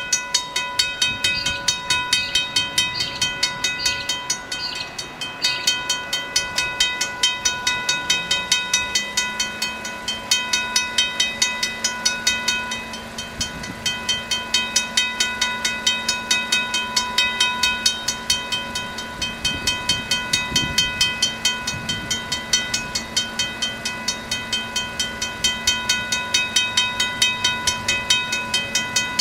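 Western Cullen Hayes mechanical level crossing bells ringing with rapid, evenly repeated strikes, sounding as the crossing's warning that a train is approaching. From about eight seconds in, a low steady hum rises in underneath and holds.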